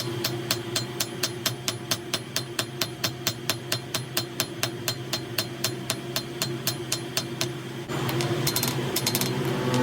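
Rapid, evenly spaced hammer blows on metal, about four a second, over a steady hum. The blows stop about eight seconds in.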